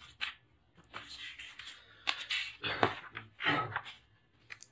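Paper rustling in several short bursts as a sheet of notes is handled and turned over to the next page.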